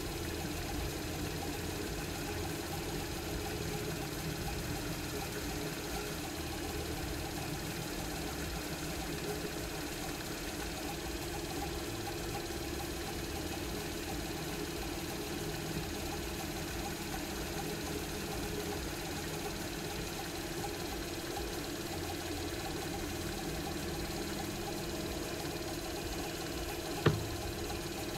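Small cue-repair lathe running steadily, spinning a pool cue shaft while a blade held against it trims the new tip flush with the ferrule. A single sharp click comes about a second before the end.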